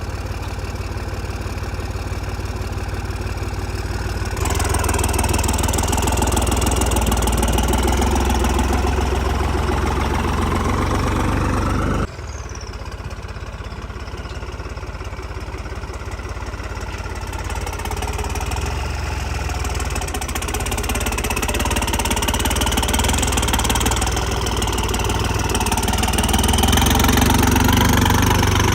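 New Holland tractor's diesel engine running, with the revs picking up about four seconds in. It drops back suddenly about twelve seconds in, then builds up again toward the end.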